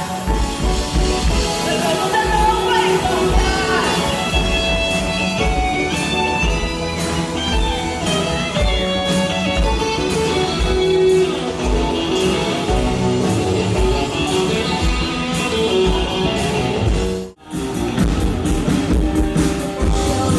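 Band music with singing and guitar over a steady beat; the sound drops out for an instant near the end, then the music resumes.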